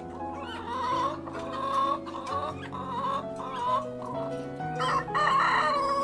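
Chickens clucking in a run of short repeated calls, then about five seconds in a rooster crows, the loudest sound here, in one long drawn-out call that trails off.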